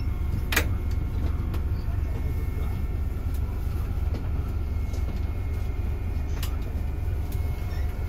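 Idling engine of a Kia express coach, heard inside the cabin as a steady low rumble, with a few sharp clicks, the loudest about half a second in.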